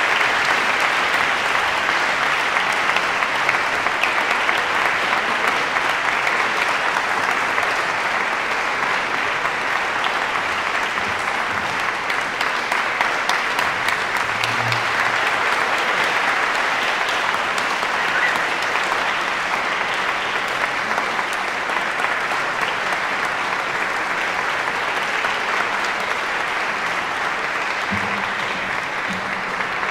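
Concert-hall audience applauding, a dense, steady clapping.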